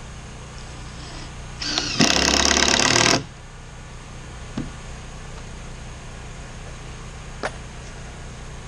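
An electric power saw runs for about a second, cutting through a deck board, over the steady hum of a running generator. A couple of light knocks follow.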